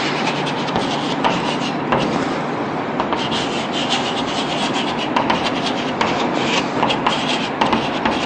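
Chalk writing on a blackboard: a run of short scratching strokes and small taps as words are written out, over a steady low background hum.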